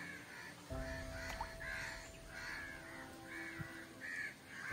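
Crows cawing over and over, about two harsh caws a second.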